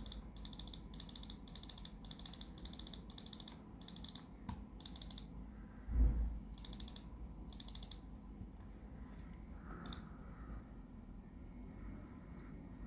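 Crickets chirping in regular high-pitched pulses, about three a second, over a steady high insect trill, with a dull thump about six seconds in.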